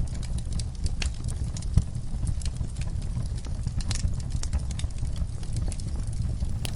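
Wood fire crackling in a fireplace: a steady low rumble of the flames with frequent sharp, irregular pops and snaps, one louder pop a little under two seconds in.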